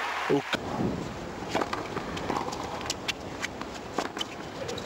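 Tennis serve and rally: several sharp racquet-on-ball hits, the first about a second and a half in, over a low stadium crowd murmur.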